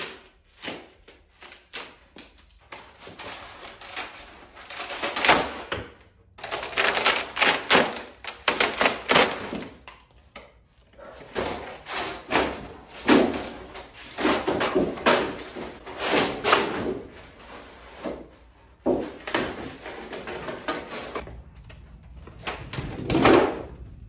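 Old fiberglass being pried and torn off a surfboard's foam blank: irregular bursts of scraping, cracking and tearing, stopping abruptly several times.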